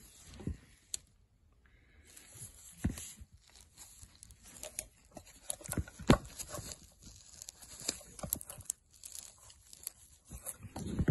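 Old rubber coolant hoses on a Rootes 1725 engine squeezed and flexed by a gloved hand, giving irregular crackling and crunching with a few sharper knocks, the loudest about six seconds in. It is the crusty sound of hoses crudded up inside.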